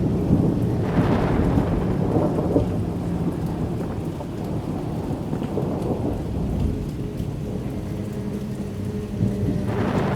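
Ambient horror sound effect: a continuous low rumble like thunder over rain, with a faint steady low drone underneath. It swells about a second in and again near the end.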